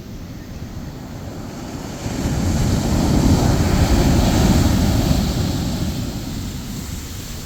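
Large ocean wave breaking: rushing surf swells about two seconds in, peaks, and fades away over several seconds.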